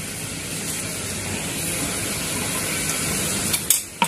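Thickened sugar syrup boiling in a nonstick pan, a steady bubbling hiss. Near the end it dips briefly between two sharp clicks.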